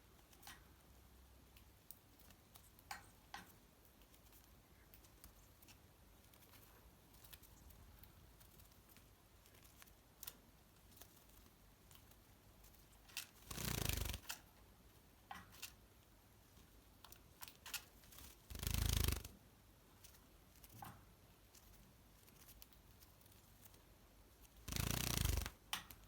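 Java sparrow rustling its wings and feathers in three short bursts while drying off after a bath, with scattered small clicks and taps between them.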